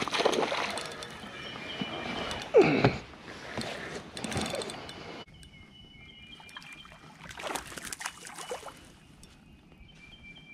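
A hooked fish splashing at the water's surface as it is reeled toward the kayak. About halfway through the sound drops abruptly to a quieter background.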